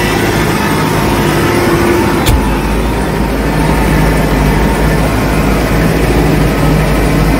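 McCormick C100 Max tractor engine running steadily under load, pulling a five-furrow reversible plough, heard from the operator's seat. A sharp click comes about two seconds in, and a deeper low rumble carries on after it.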